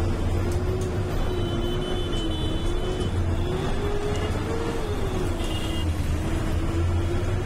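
A road vehicle's engine, most likely a bus, running at speed: a steady low drone with a whine that slowly rises and falls in pitch.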